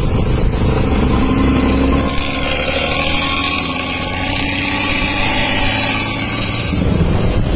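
Bus engine running through its modified 'ngorok' (snoring) exhaust, loud and steady. A hiss in the high range comes in about two seconds in and fades near the end.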